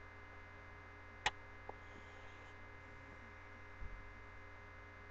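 Steady low electrical hum of the recording setup, broken by a sharp click a little over a second in, a fainter click just after, and a soft low thump near the end.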